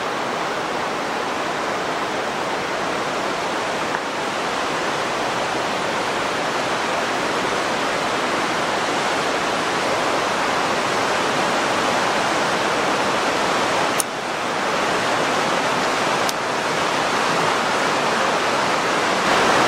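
The Genesee River rushing beneath the old subway bed: a loud, steady rush of flowing water.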